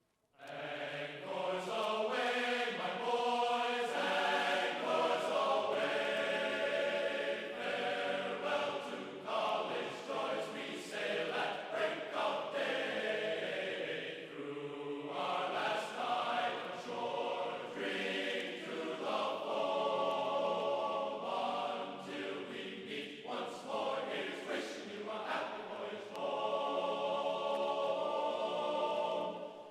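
Background music of choral singing, voices holding long notes in a chant-like style.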